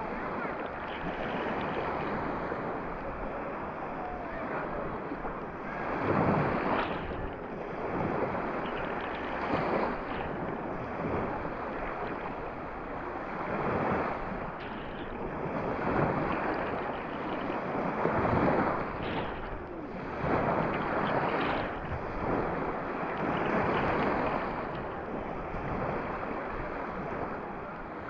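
Small Mediterranean waves breaking and washing up the sand at the water's edge, the surf swelling every few seconds.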